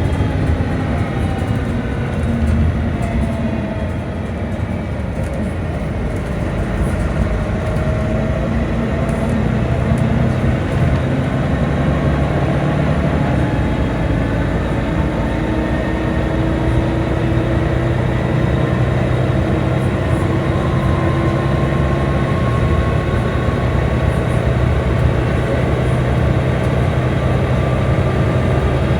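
Volvo B9TL double-decker bus running: a steady engine and road rumble with whining tones that fall in pitch over the first few seconds, then climb slowly from about halfway through.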